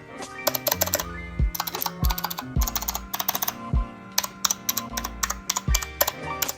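Keys of an RK Royal Kludge RK61 60% mechanical keyboard being pressed in quick, irregular runs of sharp clicks, close to the microphone. Background music with a steady beat plays underneath.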